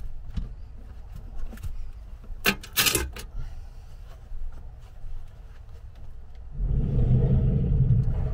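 A carpet-covered board panel being handled and pressed against a van's sliding door, giving scattered knocks and a brief scraping rustle. A louder low rumble begins near the end.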